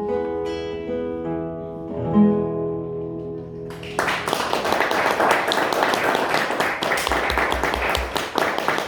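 Acoustic guitar playing the last notes of a song, which ring out and fade. About four seconds in, an audience starts applauding and keeps on steadily.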